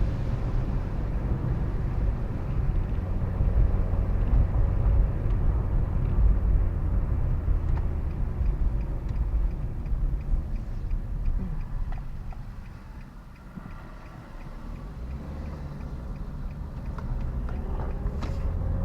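Car driving, heard from inside the cabin: a steady low rumble of engine and tyre noise that eases off about twelve seconds in and then builds back up.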